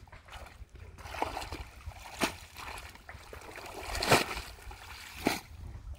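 Splashing and sloshing in shallow muddy water as clumps of water hyacinth are hauled up by hand, water dripping and trickling off the roots. Sharp splashes come about two, four and five seconds in, the one near four seconds the loudest.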